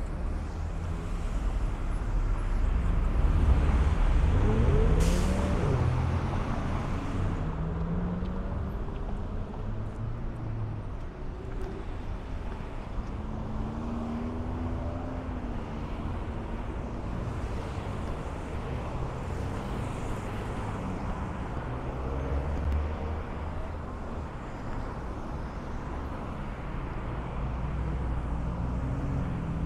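City street traffic: vehicles driving past, one engine rising in pitch and getting louder as it accelerates a few seconds in, with a short hiss about five seconds in.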